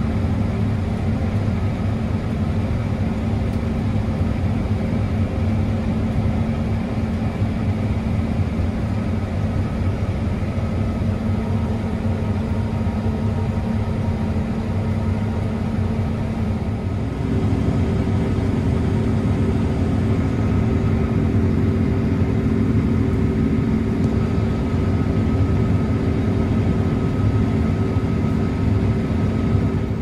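New Holland combine harvester cutting wheat with a MacDon draper header, heard from inside the cab: a steady machine drone with a few held tones. A little past halfway the drone steps up slightly in loudness and pitch.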